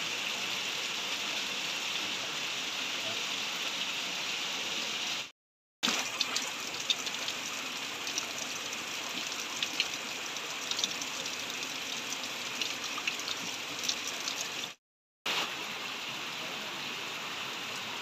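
Spring water trickling and dripping down a rock face: a steady splashing patter with sharper individual drops. It cuts out twice for about half a second.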